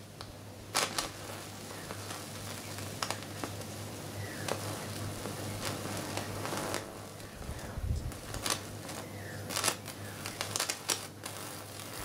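Microwave oven transformer high voltage arcing to earth through old capacitors planted in soil: irregular sharp snaps and crackles over a steady low transformer hum. The capacitors are leaking to earth. The snaps come thickest near the end.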